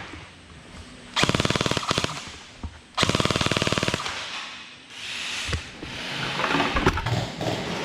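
Gel blaster firing on full-auto: two bursts of about a second each, each a rapid, even rattle of shots.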